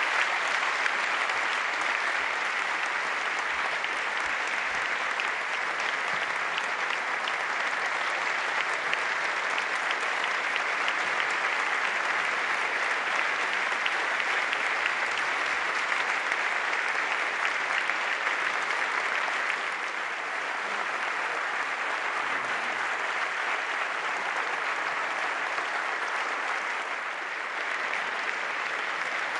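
Long, steady applause from a large audience, easing slightly about two-thirds of the way through.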